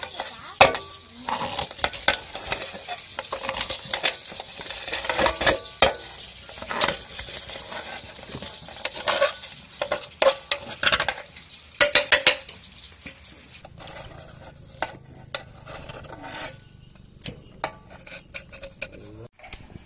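A steel knife scraping and clicking against the cups of an aluminium idli plate, prising out eggs steamed in it, with clinks of metal on metal. The scrapes come irregularly, densest and loudest about halfway through, and thin out near the end.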